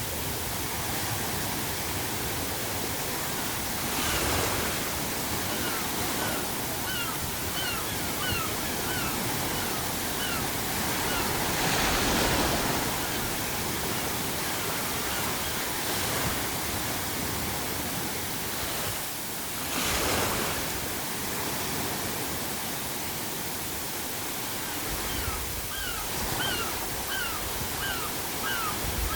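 Sea surf washing steadily, swelling as waves break about every eight seconds. Gulls call in quick runs of short, slightly falling cries, once in the first third and again near the end.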